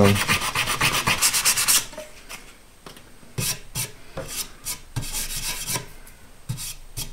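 Hand sanding with 150-grit sandpaper on a block, in fast back-and-forth strokes, about six a second, to take a 5/16 in. dowel plug down flush with the board. The strokes stop about two seconds in, and a few light knocks and taps of handling follow.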